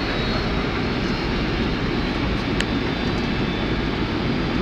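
Steady flight-deck noise of a Boeing 767 airliner descending on approach: an even rush of airflow and engine noise, mostly low, with a faint steady high whine and one short click about two and a half seconds in.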